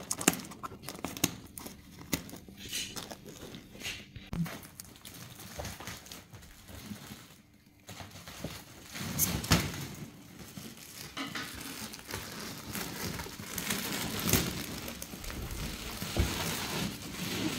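Clear plastic wrapping on a folded foam mattress crinkling and crackling as it is pulled off by hand, in irregular bursts with a short pause about halfway.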